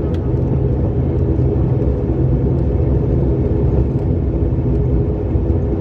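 Cabin noise of an ATR 72-600 turboprop rolling along the runway after touchdown: a steady drone of its engines and propellers.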